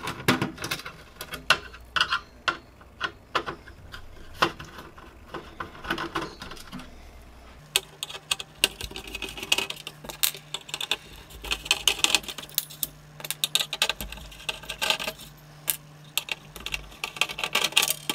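Small sharp metallic clicks, ticks and clinks of a screwdriver working the screws out of a DVR circuit board mounted in a sheet-steel case, preceded by hands unplugging cable connectors from the board. The clicks come thick and fast in the second half.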